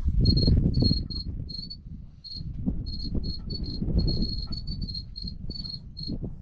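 Fish finder's fish alarm beeping: short, high electronic beeps at one pitch, coming in irregular runs of several a second, with a pause about two seconds in. A low rumbling noise runs underneath.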